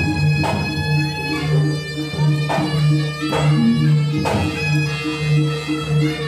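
Javanese jaranan gamelan music: a reedy shawm (slompret) line over steadily repeating low gong-chime notes, with sharp drum or cymbal strokes about once a second.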